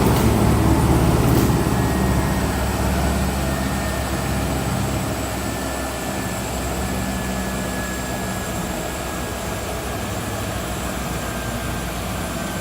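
Lobo 52-inch planer sander running with a steady low hum and a faint thin whine that slowly drops in pitch. The level eases down over the first few seconds, then holds steady.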